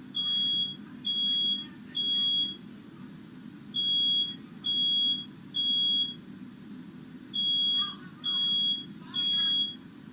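Smoke alarm sounding its high, piercing beep in groups of three with a short pause between groups, the standard fire-alarm pattern, set off by smoke from a firework let off in a bedroom.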